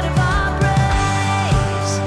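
Contemporary worship song played by a band, with a drum beat about twice a second under sustained guitar and keyboard chords and a held sung note that falls away about one and a half seconds in.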